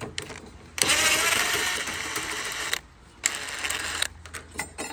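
A tool backing out a 10 mm bolt inside a car door: a mechanical whirring run of about two seconds, then a shorter run of under a second, with a few clicks near the end.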